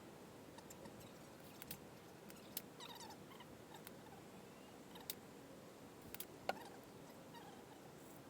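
Quiet room tone with a few faint, sharp clicks scattered through it, the loudest about six and a half seconds in, and some faint short squeaks.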